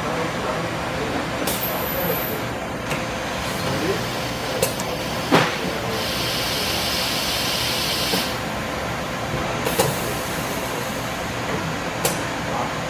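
Mitsubishi EA12E die-sink EDM changing its electrode: several sharp mechanical clicks and clunks, the loudest about five seconds in, and about two seconds of compressed-air hiss near the middle as the 3R pneumatic chuck clamps the electrode, over a steady machine hum.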